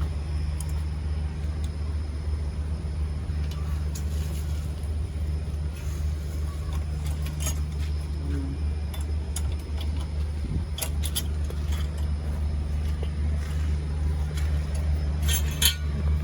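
Steady low engine drone in the background, with a few sharp metallic clinks of tools and bolts as generator parts are refitted. The loudest clinks come in a cluster near the end.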